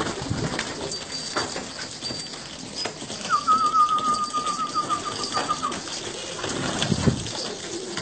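Domestic pigeons cooing at intervals, with a higher wavering tone lasting about two seconds in the middle.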